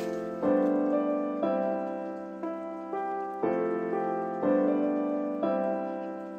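Background piano music: a chord struck about once a second and left to ring and fade before the next.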